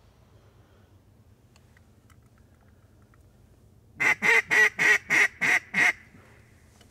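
A mallard duck call blown in a quick series of about eight loud hen quacks over two seconds, starting about four seconds in.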